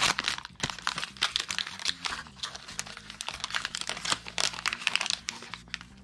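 Shiny plastic wrapper of an NBA Hoops basketball-card fat pack crinkling and crackling as hands peel and tear it open. The crackle dies down near the end.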